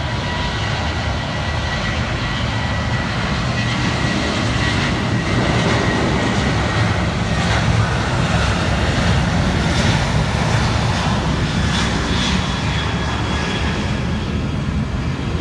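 Jet airliner's engines running, a steady loud rush with a deep rumble and a thin high whine, swelling a little in the middle.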